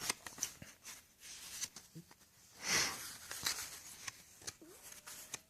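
Faint handling noises of paper and unboxed items: light rustles and clicks, with one short hiss about three seconds in.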